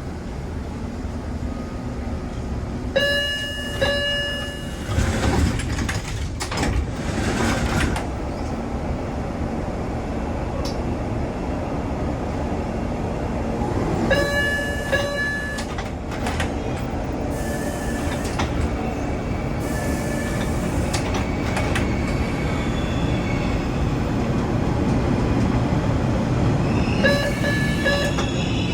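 Door chime and doors of an MBTA Orange Line subway car cycling more than once. The two-note chime sounds, the doors close with a run of knocks, then the chime sounds again and the doors knock again: a door 'hiccup', where the doors do not stay shut on the first try. A steady rumble of the stopped car's equipment runs underneath.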